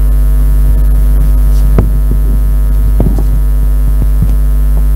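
Loud, steady electrical mains hum: a low buzz with its overtones, joined by a few faint knocks.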